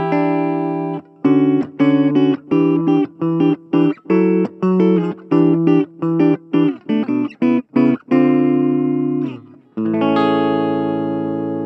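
Gibson Les Paul Standard electric guitar played through a Blackstar Fly 3 mini amp on its clean channel, with the amp's ISF tone control set to its right-hand end. A held chord gives way to a run of short, choppy chord stabs, and a last chord is left to ring out and fade near the end.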